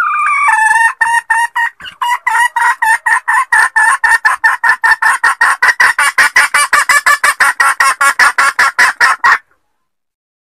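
Red junglefowl hen cackling: a drawn-out call at the start, then a long run of quick, sharp clucks that speed up, stopping abruptly about nine seconds in.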